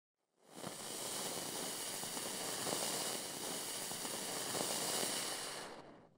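A rushing hiss of noise, a logo sound effect, swells in about half a second in, holds with some faint crackling in it, and fades away near the end.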